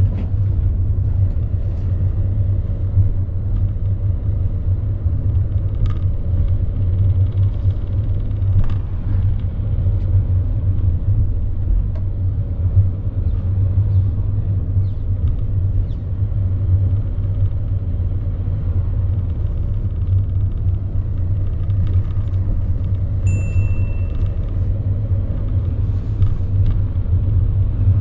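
Steady low rumble of engine and road noise inside a car's cabin as it drives along. A short high beep comes about three-quarters of the way through.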